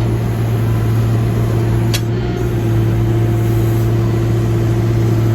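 Backhoe's diesel engine running at a steady speed, with a single sharp click about two seconds in.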